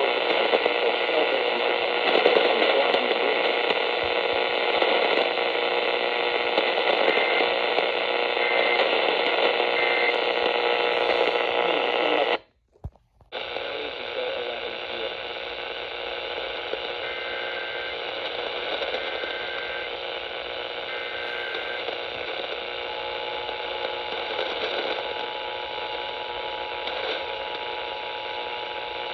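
Radio static: a steady hiss from a radio receiver with no programme on it. About twelve seconds in it cuts out for under a second, then comes back a little quieter.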